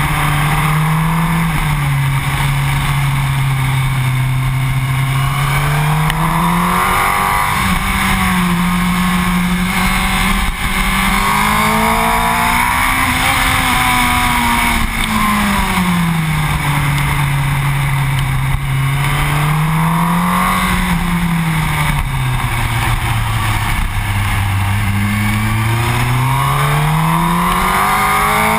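Yamaha R1's inline-four engine under way, its note rising and falling smoothly with the throttle, dipping low around the middle and near the end before climbing again at the close. A heavy rush of wind over the microphone runs under it.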